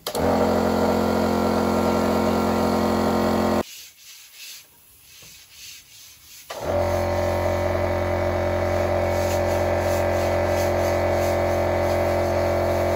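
Air compressor running steadily to feed a paint spray gun. It cuts out for about three seconds a few seconds in, then runs again.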